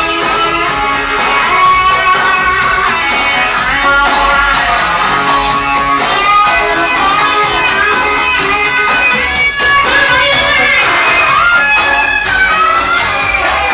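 Loud guitar music with a steady beat, played through a car's aftermarket stereo system.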